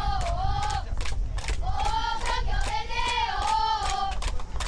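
Supporters singing a chant in unison with high voices, phrase after phrase rising and falling, with hand claps through it.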